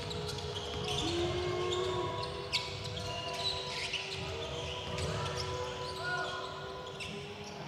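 A basketball dribbled on a hardwood court during live play, with sharp knocks and a sudden louder smack about two and a half seconds in, echoing in a large arena. Faint held tones sound in the hall.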